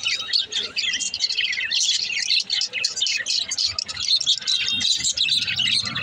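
A flock of budgerigars chattering and warbling, with dense, rapid, overlapping high chirps from several birds at once.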